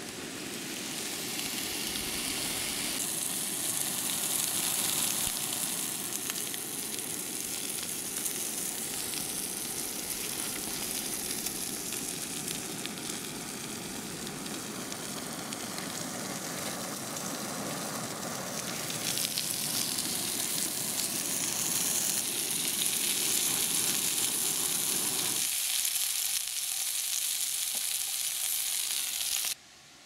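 Sausage slices sizzling in a small frying pan over a BRS-3000 camping gas burner, a steady frying hiss with the burner's low rush beneath it. The low rush drops away near the end, and the sound cuts off suddenly just before the close.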